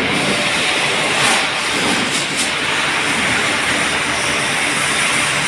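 A heavy machine running with a steady, loud roar, with a few brief faint rattles about a second and two seconds in.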